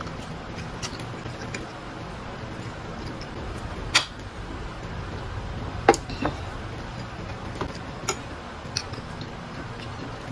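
A metal utensil clinking against ceramic plates while eating: two sharp clinks about four and six seconds in, then a few lighter clicks, over a steady low hum.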